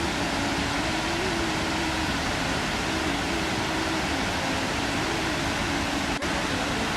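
Steady rush of falling water from the trail's waterfalls, with a faint, wavering tune underneath and a brief cut about six seconds in.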